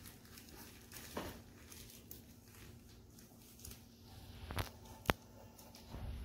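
Soft rustling and a few clicks of plastic foot-peel booties being handled and taped shut at the ankle, with a sharp tick about five seconds in.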